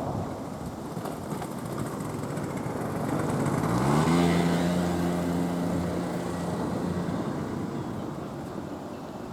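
A vehicle passing by, its noise swelling to a peak about four seconds in and then fading. A motor note rises in pitch about halfway through, then holds steady for a few seconds before dying away.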